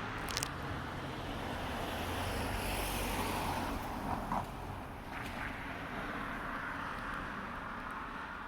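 A passing vehicle's low rumble with wind noise on the microphone, swelling around the middle and then easing off, with a couple of short clicks.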